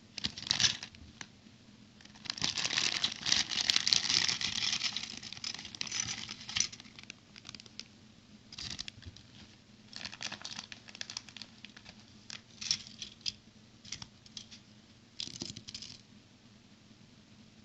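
Small plastic toy bricks being handled and clicked, with plastic packaging crinkling loudest a couple of seconds in.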